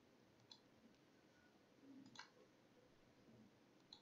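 Near silence with three faint computer mouse clicks, the middle one the loudest.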